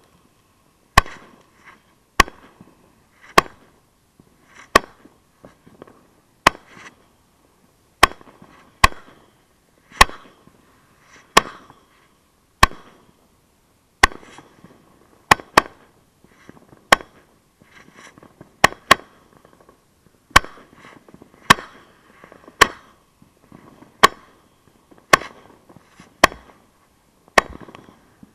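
Fireworks mortar battery firing shot after shot from close by: a sharp bang roughly every second or so, each trailing off quickly, with fainter pops and crackle from the shells bursting overhead between the launches.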